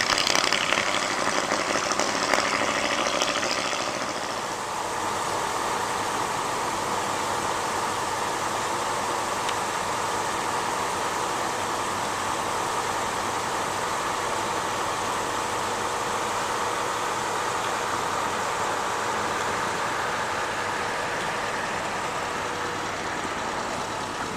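1947 Mercury cabriolet's engine running steadily as the car is driven slowly around a lot, with a brighter hiss over it for the first few seconds.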